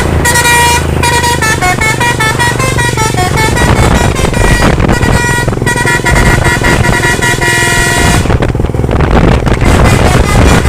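A truck's telolet horn, a set of musical air horns, playing a tune of quick stepping notes with several tones sounding at once. The tune breaks off for about two seconds near the end, then starts again.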